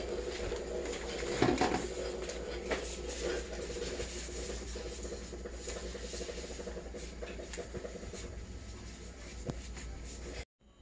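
Scratchy rustling and small clicks from the plastic wrapping and the monitor being handled during unboxing, with a louder knock or crinkle about a second and a half in.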